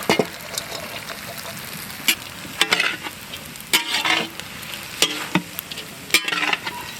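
Chopped carrot and onion sizzling in hot oil in a cooking pan, with a ladle scraping and knocking against the pan at irregular moments as the vegetables are stirred.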